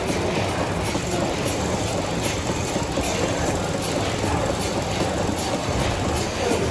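Steam mill engine running steadily: a continuous mechanical din with a regular clanking beat of a little over one knock a second.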